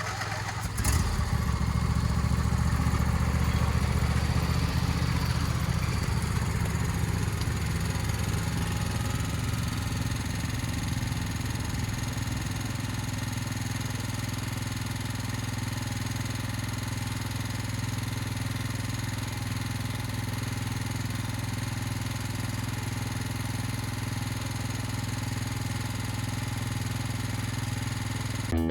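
A small engine comes in about a second in and runs steadily, with a low hum. It is a bit louder for the first several seconds, then settles to an even idle-like drone.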